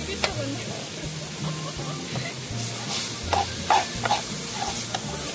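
Chopped vegetables sizzling in a metal kadhai while a metal ladle stirs them, clicking and scraping against the pan several times.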